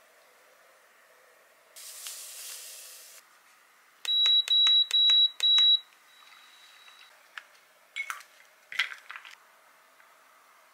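Electronic kitchen appliance beeping four times in quick succession with a single high tone, its done or timer signal. A short hiss comes before it and a few light clicks after.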